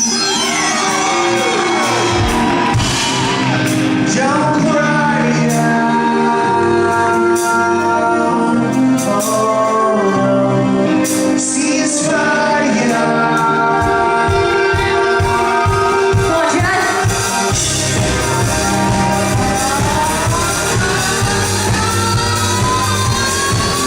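Live rock band playing with a singer, heard loud through a phone or camera microphone, the sung line gliding up and down over held chords.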